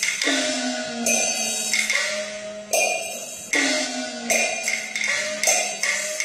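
Peking opera percussion ensemble playing: gongs and cymbals struck in a steady run a little under a second apart, with wooden clapper clicks, each gong stroke ringing on with a bending pitch.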